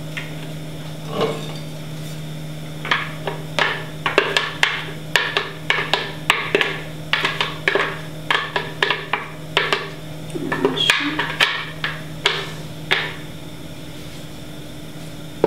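Blender jar knocked and tapped repeatedly while being emptied into a cake pan: a run of sharp, irregular knocks, several a second, starting about three seconds in and stopping near the end, over a steady low hum.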